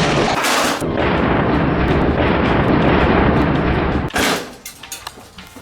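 Loud rumbling and clattering from the metal body and stand of a Coleman portable grill being turned over and handled during assembly. It stops abruptly about four seconds in, followed by a few light clicks.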